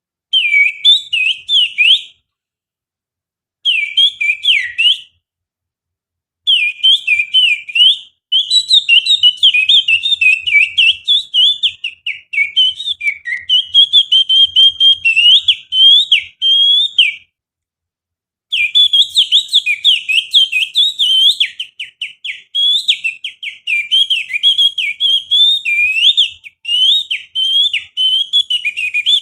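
Human finger whistling (whistled with the little finger) imitating the song of an oriental magpie-robin (kacer): fast, high, warbling phrases of gliding notes and trills, broken by short silences about two, five and seventeen seconds in.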